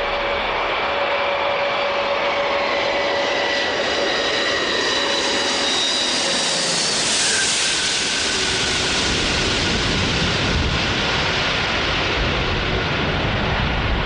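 Antonov An-225 Mriya's six turbofan jet engines running as the huge aircraft flies low past. The engine whine falls slowly in pitch, the hiss peaks about seven seconds in as it goes by, and a deeper rumble follows.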